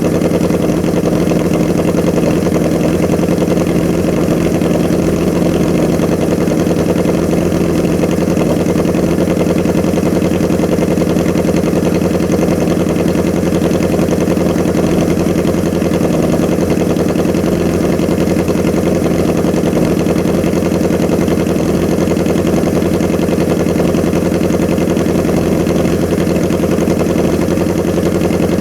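1981 Honda CB650's air-cooled inline-four engine idling steadily through a Hindle 4-2-1 full exhaust, running evenly on newly fitted Mikuni VM34 carburettors.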